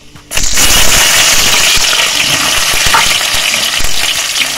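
Finely chopped onions tipped into hot oil in a pan about half a second in, setting off a sudden loud, steady sizzle of frying.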